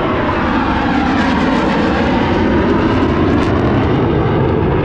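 Jet fighter flying low overhead: a loud engine roar whose pitch shifts as it passes.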